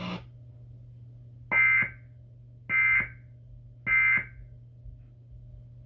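Emergency Alert System end-of-message signal: three short, identical bursts of digital data tone about a second apart, closing the tornado warning broadcast. A faint steady low hum runs underneath.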